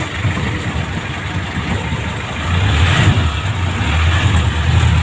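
Vehicle engine and road noise while driving, a steady low rumble that grows louder about halfway through.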